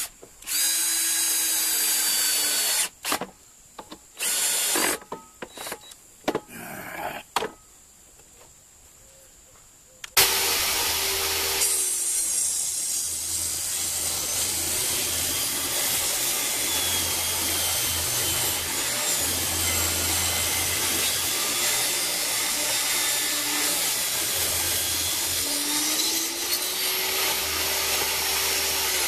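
A power drill runs in a series of short bursts, each spinning up, for about the first ten seconds. Then a table saw starts and runs steadily for the rest of the time, its blade cutting through lumber.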